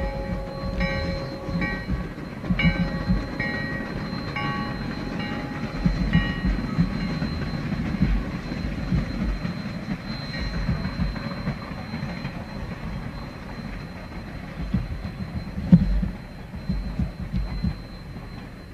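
Sierra Railway No. 3, a 4-6-0 steam locomotive, working past with its passenger train: a steady low rumble of the engine and cars. Short ringing tones repeat about once a second over the first few seconds and then fade out, and there is one sharp knock near the end.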